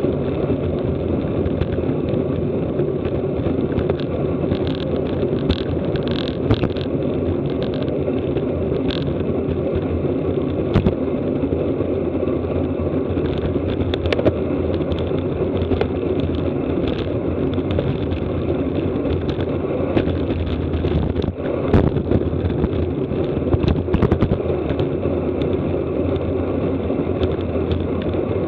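Steady rush of wind on the microphone with road noise from a road bicycle ridden at racing speed, and a few short sharp clicks.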